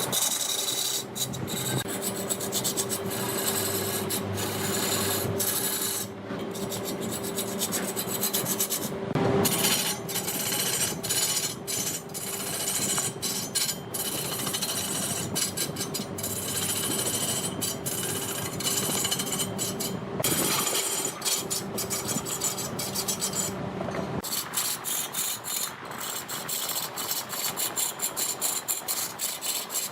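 Large wood lathe turning a redwood log while a cutting tool scrapes and shaves the spinning wood. A steady hum runs under the scraping and stops about three-quarters of the way through, after which the scraping goes on in short, choppy strokes.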